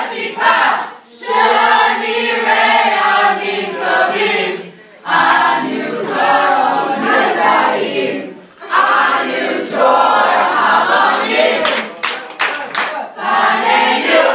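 A group of young people singing a Hebrew song together, loud phrases with short breaks between them.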